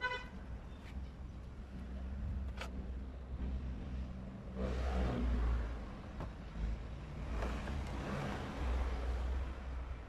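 Road traffic going by: a low steady rumble that swells twice, about halfway through and again near the end, as vehicles pass, with a brief horn toot at the very start.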